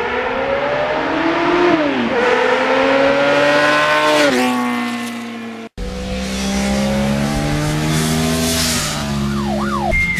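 Motorcycle engine accelerating hard, its pitch climbing and then dropping twice as it shifts up through the gears. After a brief cut about halfway through, the engine runs again at high revs with small shifts in pitch.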